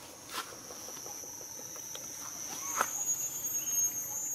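Insects buzzing in a steady, high-pitched drone that grows louder a little before three seconds in, with a few short clicks.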